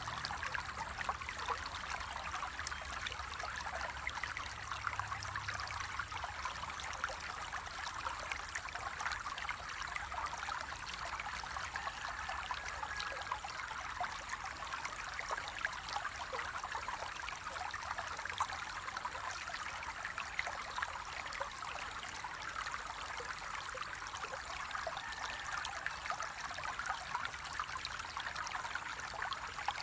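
Water flowing steadily over rocks in a small stream, a constant trickling babble.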